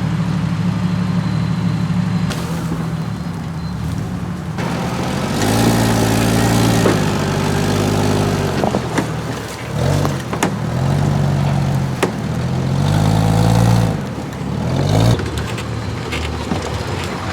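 Off-road 4x4 engine running, then revving up and down repeatedly as it works over terrain, with a few sharp knocks.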